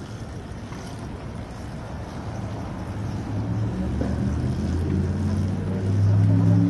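Wind rumbling on the microphone, with a low steady hum that comes in about halfway through and grows louder toward the end.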